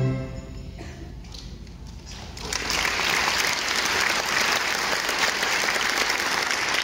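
The string orchestra's final chord dies away, followed by a few scattered claps. About two and a half seconds in, the audience breaks into full, steady applause.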